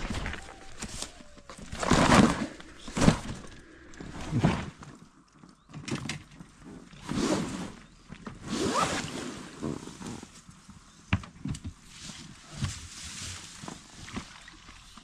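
An inflatable boat being rowed: oars splash and swish through the water in strokes about every second and a half, with knocks from the oars.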